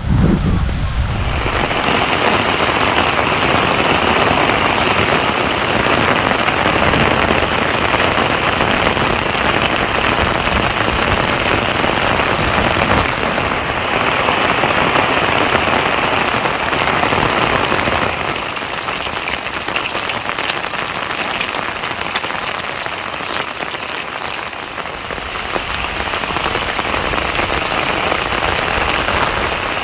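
Rain falling steadily as an even, dense hiss. It eases slightly partway through, then builds again near the end.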